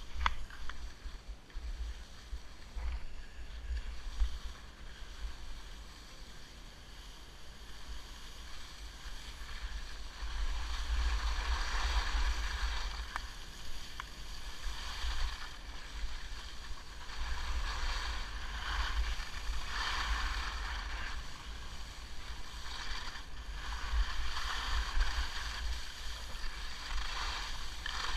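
Skis turning on groomed snow, their edges scraping and hissing in swells every few seconds, louder from about ten seconds in, over a steady rumble of wind on the camera's microphone.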